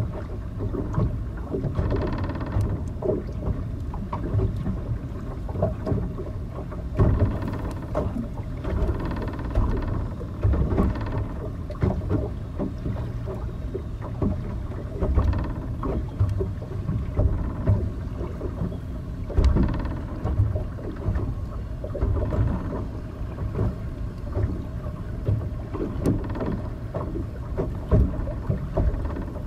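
Wind buffeting the microphone, with irregular surges of rushing, splashing water.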